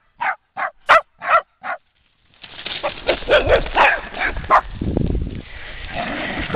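A dog barking sharply about six times in quick succession, roughly three barks a second. After a short gap it gives way to a busier jumble of barks and yips over a steady background noise.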